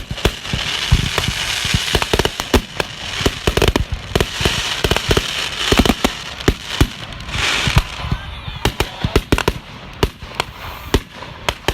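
Fireworks show going off: a rapid, irregular run of bangs with dense crackling between them.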